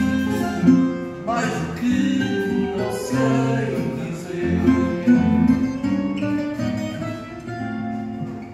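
A man singing fado into a microphone over guitar accompaniment, played through a loudspeaker.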